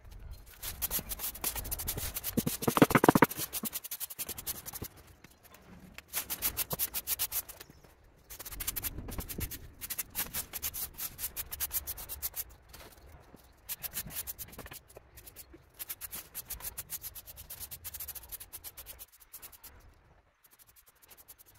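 Quick scraping strokes on a hard surface, in bursts of one to four seconds with short pauses between, the loudest near the start.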